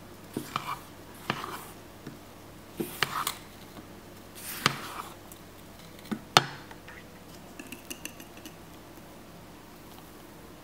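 Spatula knocking and scraping against a stainless steel mixing bowl while folding cocoa powder and flour into whipped egg batter. The taps are irregular, the loudest about six seconds in, with a few light ticks near the end.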